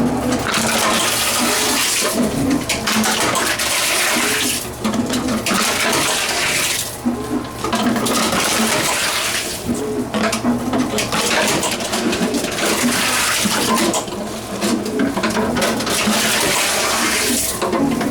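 Tomra T×2 reverse vending machine taking in plastic bottles one after another: a loud rushing, rattling run that breaks off briefly every few seconds as each bottle goes through.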